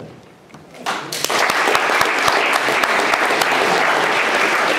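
Audience applause breaks out about a second in and carries on steadily, many hands clapping.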